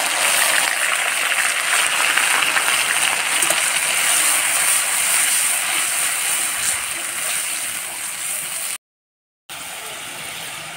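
Wet ground spice paste sizzling hard in hot oil in a kadhai. The hiss eases gradually, cuts out for a moment near the end, then goes on quieter.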